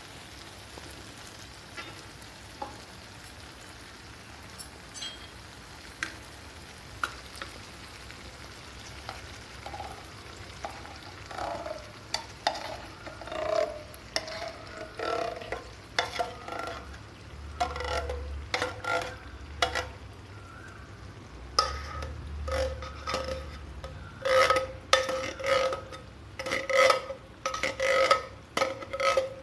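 Tomato base sizzling softly in a hot brass kadhai while canned baked beans are poured in. A metal spoon then scrapes and knocks inside the tin can, the knocks growing more frequent and louder toward the end, each one leaving the tin ringing briefly.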